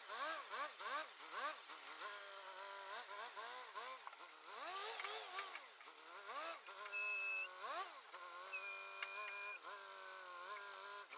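Rough-terrain forklift engine running as the machine manoeuvres, its pitch rising and falling in repeated quick revs, then holding steadier. A thin high whine sounds briefly about seven seconds in and again for about a second near nine seconds.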